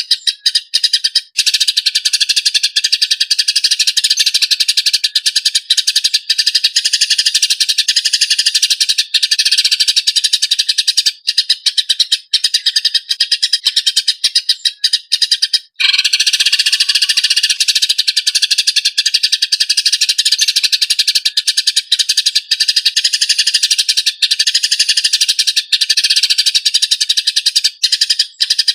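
Eurasian tree sparrows giving their fighting chatter: a fast, dense stream of harsh, rapid chirps, broken only by a brief pause about halfway through.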